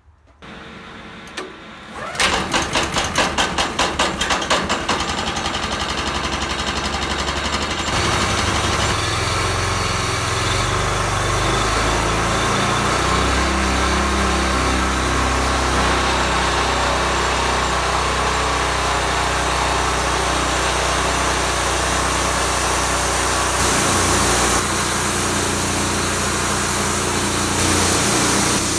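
Sawmill's petrol engine starting about two seconds in, running unevenly for a few seconds, then settling into a steady run that takes on a heavier, lower sound from about eight seconds, as when the saw is cutting.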